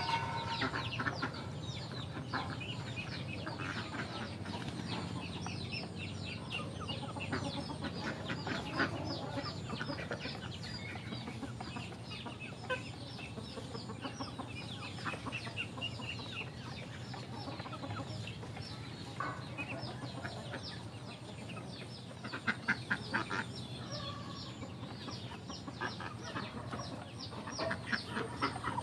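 Backyard poultry flock calling: a continuous chorus of clucks and many rapid, high, short falling peeps, over a steady low hum.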